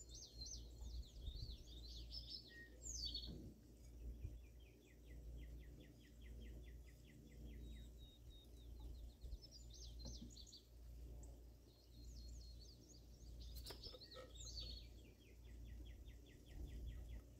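Faint songbird singing: phrases of quick, sweeping high notes that run into a long trill of rapid repeated notes, heard over and over, over a steady low background rumble.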